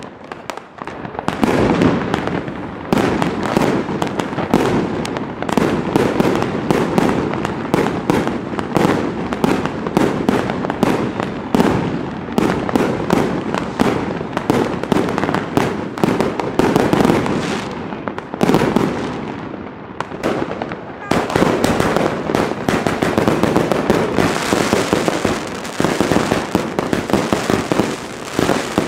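Fireworks and firecrackers going off in a dense, continuous run of rapid bangs and crackling with no pause. About 21 seconds in, it turns brighter and hissier.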